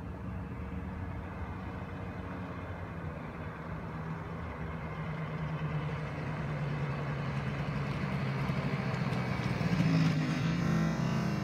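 Yamaha BWS scooter's two-stroke engine, fitted with a Malossi 70cc big-bore kit and aftermarket exhaust, running as the scooter rides toward the listener, growing steadily louder and loudest near the end.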